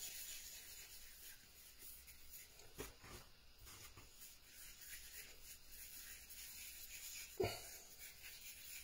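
Faint rubbing of hands rolling a flour-dusted ball of bread dough on a wooden board, with one soft knock near the end.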